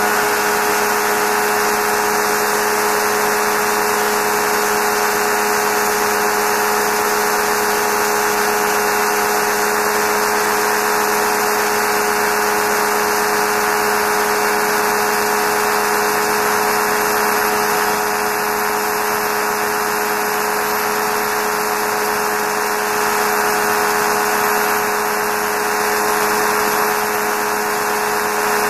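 Steady, loud wind rush over a camera mounted under the wing of a Quad City Challenger II ultralight in flight, with the even drone of its engine and propeller underneath, holding a constant pitch.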